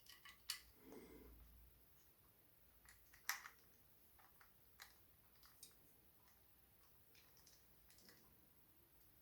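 Faint, scattered clicks and ticks of a screwdriver undoing small screws from a hard drive's metal mounting housing. The loudest click comes about three seconds in.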